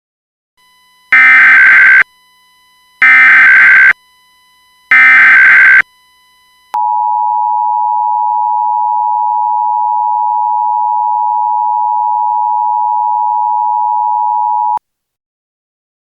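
Emergency Alert System alert: three short, loud, buzzy digital header bursts about two seconds apart, then the steady two-tone attention signal, held for about eight seconds before it cuts off. Together they signal an incoming tornado warning broadcast.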